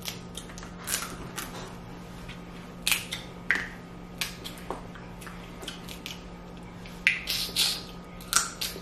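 Snow crab leg shells being cracked and snapped open by hand, in a series of short, sharp cracks that come thicker near the end.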